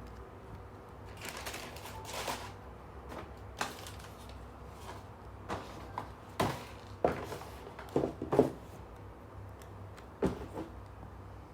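Sneaker box and packaging being handled: brief rustles and a string of sharp taps and knocks, most of them clustered past the middle.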